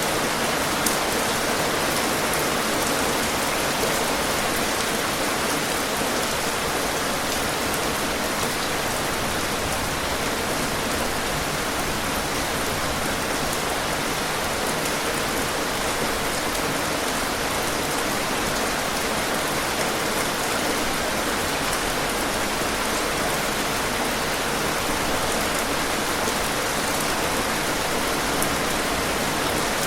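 Steady rain falling on a surface, an even hiss with a few separate drops ticking through it.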